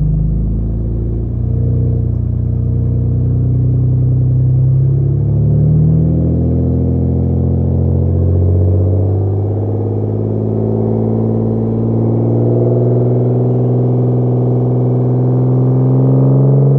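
BMW 525i straight-six idling through its exhaust, a Jones turbine muffler with the resonator and middle muffler deleted, still warming up after a cold start. The idle pitch wavers and creeps slowly upward.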